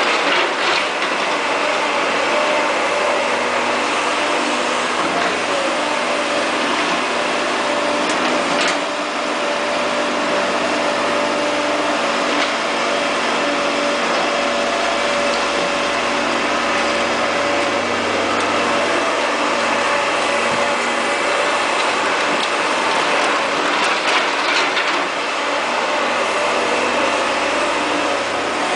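Caterpillar E240B excavator's diesel engine running steadily, with a few brief sharp knocks.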